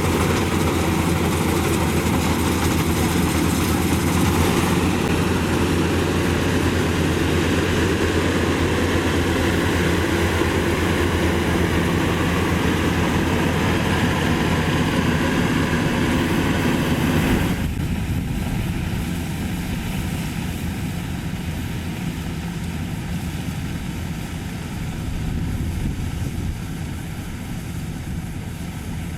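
Maxxi Bimo 102 rice combine harvester's engine running steadily under load. About two-thirds of the way through the sound drops suddenly to a quieter, duller drone.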